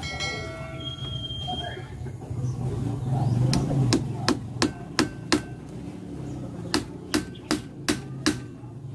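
Hammer striking a wooden strip on a woven bamboo lattice window: a run of five quick blows about a third of the way in, a short pause, then five more near the end.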